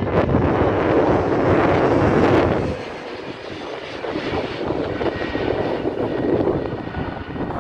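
Airbus A321 airliner on landing approach with gear down, passing low overhead with its jet engines loud. The noise drops sharply about three seconds in and carries on as a lower, steady rumble as the aircraft moves away.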